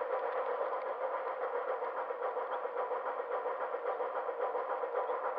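HO-scale model train running along the track, heard close up from a camera riding on a flat car behind the locomotive's tender: a steady whir with fast, even clicking from the wheels and running gear.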